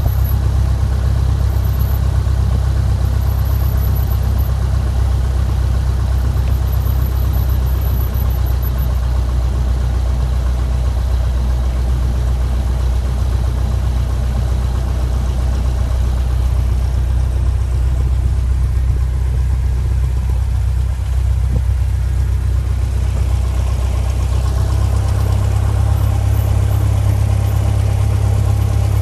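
Engine and propeller of a single-engine light aircraft running at low power while taxiing after landing, a steady low drone heard from inside the cockpit. Near the end the low drone grows a little stronger.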